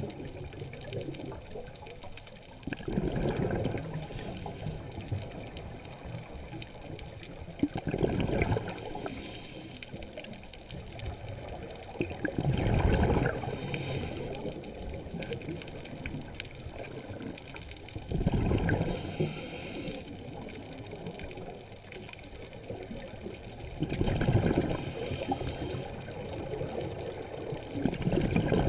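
Scuba diver breathing through a regulator underwater: a bubbling exhalation about every five seconds, six in all, each paired with a short high hiss of the regulator.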